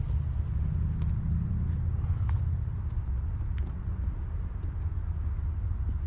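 A steady, high-pitched chorus of insects, crickets or similar, drones on without a break over a low, steady rumble.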